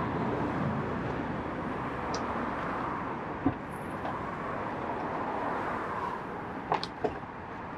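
Steady outdoor background hum with distant traffic. A single click comes about three and a half seconds in as a hatchback's tailgate is lifted open, and two quick sharp knocks near the end as a bag is loaded into the boot.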